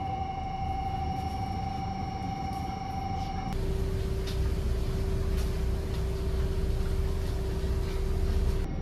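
Steady hum inside a stationary Fujisan View Express train car, with several fixed high whining tones from its onboard equipment. About three and a half seconds in, it changes abruptly to a louder low rumble with a single lower steady tone.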